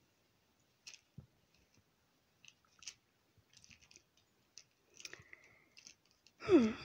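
Faint scattered clicks and rustles from hands handling a soft plush toy dog. Near the end, a short murmured voice sound that slides down in pitch.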